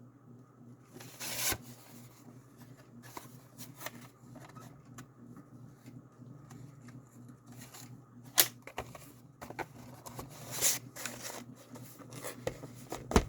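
Handling noise of packaging and plastic DVD cases: scattered rustles and light clicks, a few louder rustles, and a sharp knock near the end.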